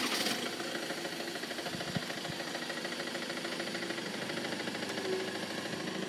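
An engine idling steadily with a fast, even pulse, started just before.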